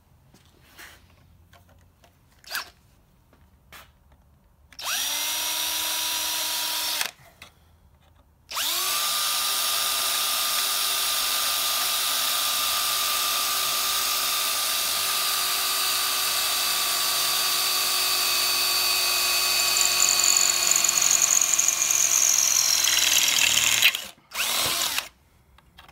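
Cordless drill boring through a stainless steel plate with a twist bit. It makes a short run about five seconds in, then after a pause a long steady run with a motor whine that grows louder and harsher in the last few seconds before the motor winds down and stops. A final brief burst follows.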